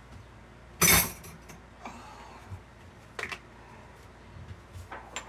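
Kitchen clatter: one loud, sharp clatter about a second in, then a few lighter knocks and clinks as items are handled and set down on a counter.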